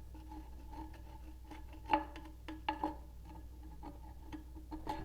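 Light metal taps and clinks against a cast iron drain hub, scattered irregularly with the loudest about two seconds in, each leaving a brief ringing tone.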